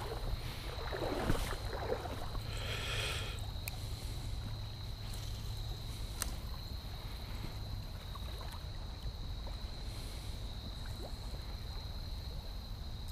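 Quiet creek ambience heard from a small boat on the water: a steady low rumble of water and wind, with a thin, steady high-pitched whine throughout and a few faint handling rustles in the first few seconds.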